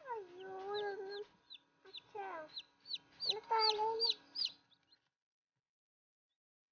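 Newly hatched chicks peeping in quick, high, downward chirps, with a lower drawn-out pitched sound beneath them; it cuts off abruptly about five seconds in.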